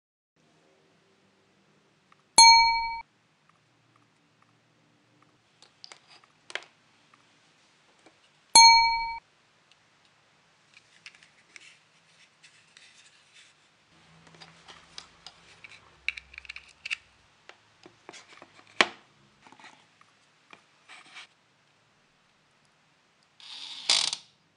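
Two identical bright bell-like dings about six seconds apart, each ringing out over about half a second, are the loudest sounds. Between and after them come light clicks, taps and scrapes as small electronic parts and wires are handled, with a brief rustle near the end.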